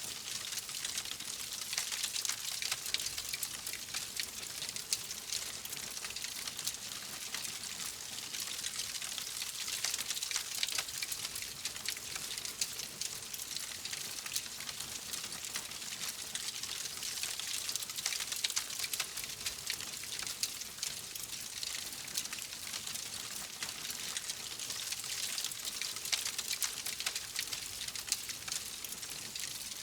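Wood fire burning in a fireplace: a steady hiss with dense small crackles and pops throughout.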